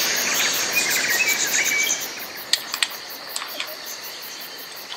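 Jungle-style nature ambience: short high bird-like chirps over a steady insect hiss for about two seconds, then quieter, with a few scattered sharp clicks.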